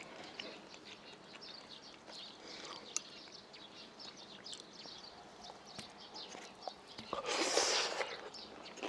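Close-miked eating sounds: chopsticks working a ketchup-covered rolled omelette and wet chewing, with many small clicks and smacks. About seven seconds in comes a louder, longer rush of mouth noise lasting about a second.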